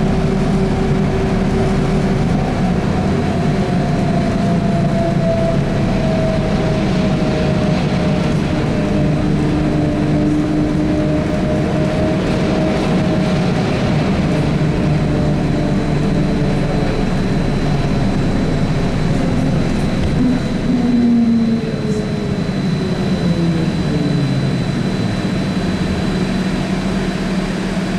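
Trolza-5275.03 Optima trolleybus underway: electric traction motor whine over steady running rumble. A thin high whine joins midway, and the motor tones fall in pitch near the end as the trolleybus slows.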